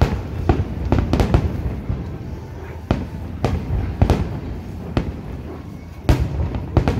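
Aerial fireworks shells bursting in an irregular series of sharp bangs, some in quick clusters of two or three, over a continuous low rumble.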